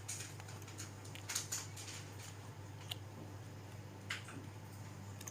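Light handling noises of phone housings being picked up and shown: a few brief clicks and rustles, spaced a second or so apart, over a steady low hum.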